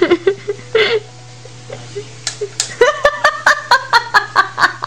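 A few sharp smacking clicks, then from about three seconds in a fast run of short high-pitched laughing bursts, about six a second.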